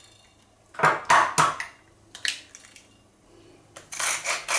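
An egg knocked against the rim of a china plate: a few sharp taps about a second in, then lighter clicks of shell a second later. Near the end a wooden spice mill starts grinding, a fast run of small clicks.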